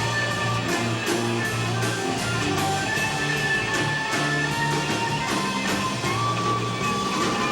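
A live rock band playing, with a moving bass line, a steady drum beat and held melody notes from guitar, recorded through a camcorder's microphone.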